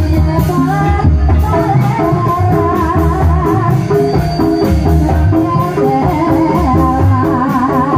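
Live Javanese gamelan playing the accompaniment for an ebeg hobby-horse dance: rows of bronze kettle gongs and hanging gongs over a steady beat, with a wavering high melody line.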